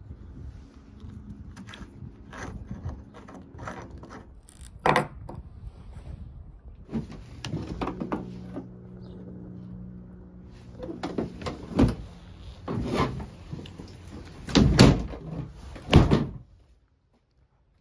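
Scattered knocks and thunks from the boat's seats and lids being handled, a few of them louder. A low steady hum runs through the middle, and the sound cuts off suddenly near the end.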